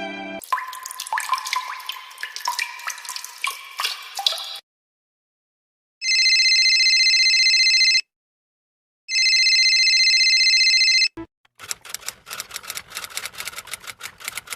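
A string of separate sound effects. First, about four seconds of watery bubbling and dripping with short pitched blips. Then, after a pause, two identical steady electronic rings of about two seconds each, like a phone ringing. Last, a fast run of sharp clicks.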